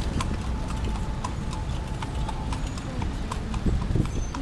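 Horse's hooves clip-clopping on the paved street as it pulls a calandria, a horse-drawn carriage, at an even pace of about three strikes a second, over a steady low rumble.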